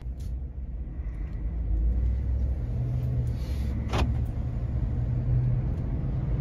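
Steady low engine and road rumble inside a Ford F-150 pickup's cab while driving, with a single sharp click about four seconds in.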